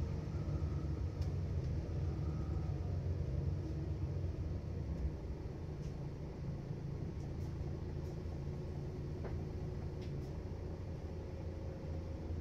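Mercedes-Benz Citaro bus engine rumbling low and steady, easing slowly quieter, with a few faint clicks.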